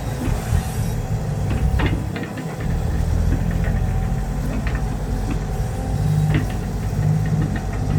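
Dump truck's diesel engine running with a steady low drone, with scattered knocks and rattles.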